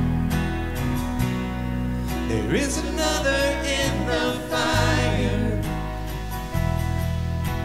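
Worship song in a church service: a voice singing over guitar and long held bass notes.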